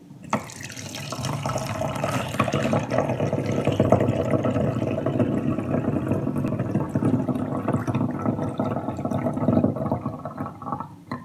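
Liquid pouring steadily into a glass jug as it fills, stopping near the end.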